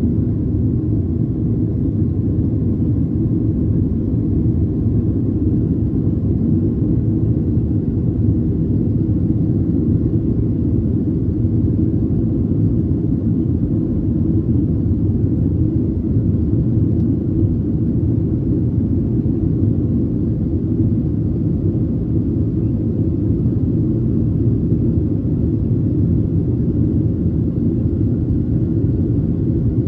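Steady low rumble inside the cabin of a Boeing 737-700 climbing after takeoff, from its CFM56-7B turbofan engines running at climb power.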